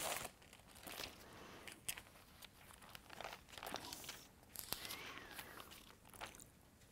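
Faint rustling and crinkling of thin Bible pages being turned by hand, with a few soft clicks and handling noises.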